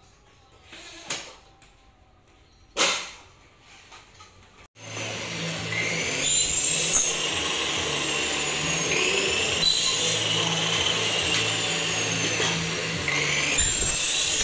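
Two sharp knocks, then about five seconds in an electric power tool starts and runs steadily, its high whine rising and dipping in pitch several times.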